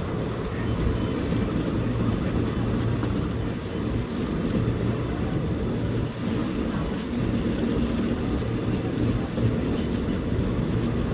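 Moving Indian Railways express passenger coach heard from its open window: the wheels run on the rails with a steady rumble and a low hum.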